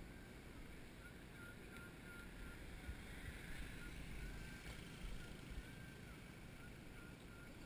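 Low, steady rumble of wind and movement noise on an action camera, with faint short high-pitched tones recurring now and then.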